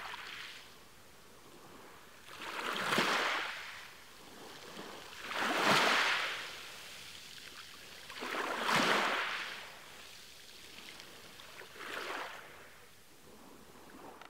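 Sea waves washing in one after another, about every three seconds, each swelling up and falling away.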